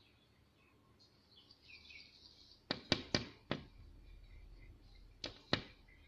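Red-vented bulbul striking its beak against window glass: four sharp taps in quick succession a little past halfway, then two more near the end. The uploader puts the pecking down to the bird being confused by the shadow of a climbing grape vine.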